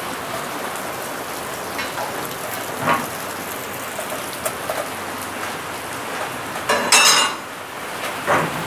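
Steady rain-like hiss with a few scattered light clinks, and one louder ringing metallic clank about seven seconds in.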